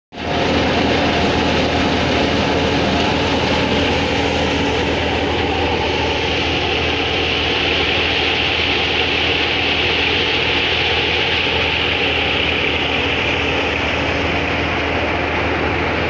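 Tractor-powered wheat thresher running steadily: a constant low engine hum under a loud, even hiss from the threshing machine.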